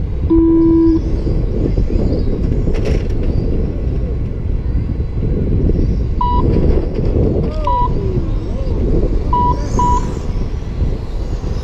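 Steady low outdoor rumble, with a held electronic tone near the start and several short high electronic beeps in the second half.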